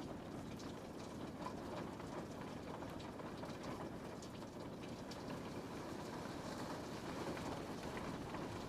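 Steady rain falling on a window, an even patter with faint scattered drop ticks.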